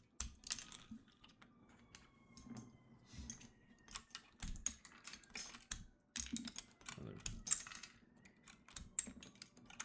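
Irregular plastic clicks and clacks from a Keychron mechanical keyboard as its keycaps are pulled off by hand.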